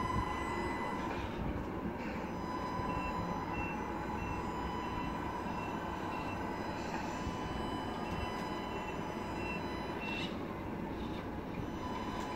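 Tamiya RC Scania truck manoeuvring on a tile floor: a steady whine and rumble from its drive, with short high beeps repeating about every two-thirds of a second through the middle as it backs up, a reversing warning.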